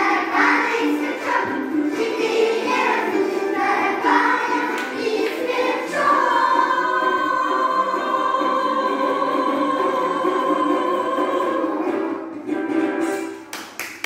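Young children's choir singing a song together, the voices settling about six seconds in onto one long held final note that fades out shortly before the end.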